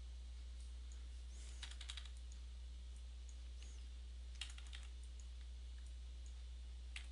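Three short bursts of quick computer-keyboard keystrokes, about a second and a half in, about four and a half seconds in and near the end, over a steady low electrical hum.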